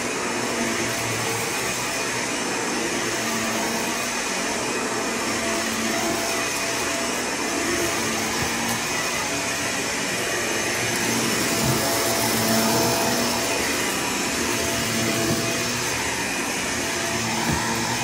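Hoover vacuum cleaner running steadily, a continuous motor hum and airflow noise, with a couple of short ticks near the middle and near the end.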